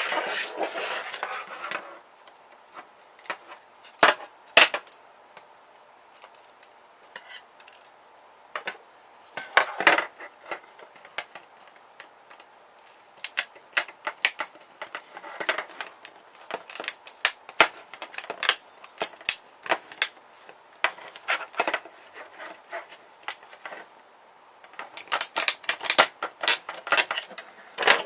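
Plastic pH meter being taken apart by hand: irregular sharp clicks, clacks and small rattles of plastic parts and tools knocking together, with a quick flurry of clicks near the end.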